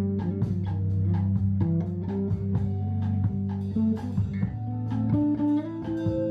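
Live jazz band playing: a guitar plucking a line of notes over a bass guitar.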